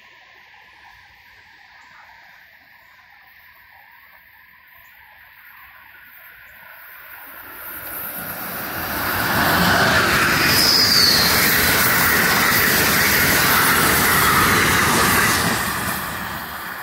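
Amtrak electric passenger train approaching and passing at speed: a rising rush of wheels on rail and air, loud and steady for about six seconds as it goes by, then falling away. A brief high squeal sounds a little past the middle.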